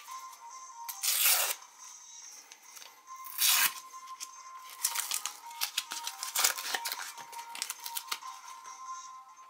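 Thin paper wrapper being torn open by hand to get at a cardboard collectible cap: two loud rips, about a second in and about three and a half seconds in, with paper crinkling and small clicks between and after.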